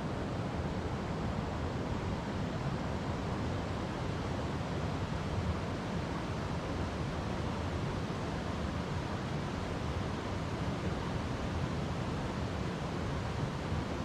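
River water flowing over rocks: a steady, unbroken rush, heaviest in the low end.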